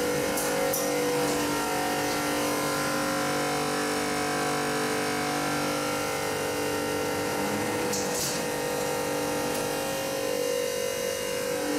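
Steady machine hum made of several held tones, with a few short clicks just under a second in and again around eight seconds in.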